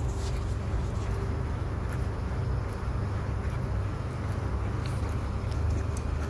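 Low, steady rumbling wind noise buffeting a microphone carried while jogging, with a few faint scattered clicks.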